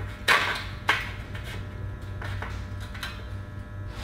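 Steel G-clamp clanking against a steel door frame as it is put on and tightened: two sharp metallic knocks about half a second apart near the start, then a few lighter clicks about two to three seconds in.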